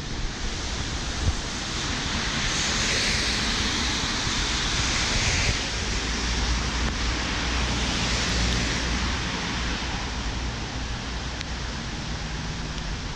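Wind rumbling on the microphone over a steady hiss of tyres on a wet road, the hiss swelling as cars pass about three seconds in and again around eight seconds.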